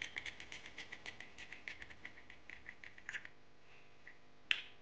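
Black plastic pump on a glass bottle of Morphe Filter Effect foundation pressed over and over, a quick run of faint clicks about six a second for some three seconds as the new pump is primed, then one sharper click near the end.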